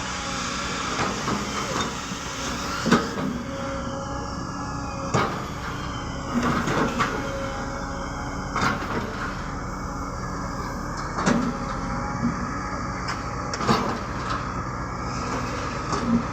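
Excavator's diesel engine running steadily under load, with sharp metal clanks and knocks every two seconds or so as the machine works.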